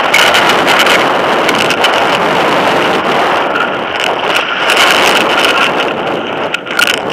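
Wind rushing over a bike-mounted camera, with knobbly mountain-bike tyres rolling fast on a dirt trail and the bike rattling and clicking over bumps. The noise eases briefly near the end as the bike slows.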